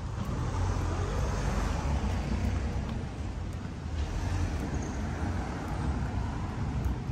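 Road traffic on a town street: cars passing, their tyre and engine noise swelling and fading over a steady low rumble.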